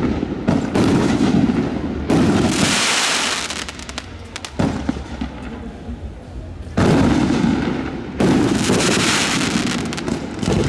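Aerial fireworks display: about five sudden loud bangs, each followed by a second or more of crackle and rumble that slowly dies away.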